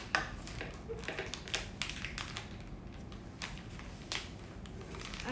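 Scissors snipping at a plastic bag of doll clothes, the plastic crinkling: a run of sharp, irregular clicks.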